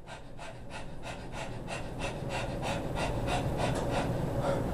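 A man panting hard in quick, short breaths, about four a second and growing louder, from straining through a heavy leg-press push.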